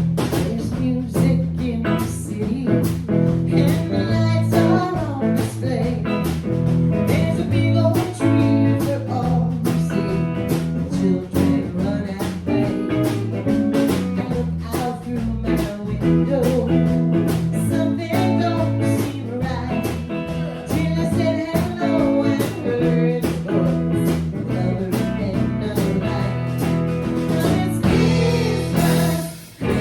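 A song with singing over guitar and a steady drum beat. The music drops out briefly near the end.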